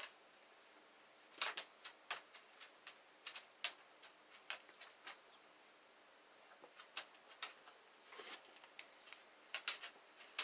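Faint, irregular metal clicks and ticks of a dimple pick and tension tool working the pins of a Magnum high-security dimple Euro cylinder lock, some coming in quick runs.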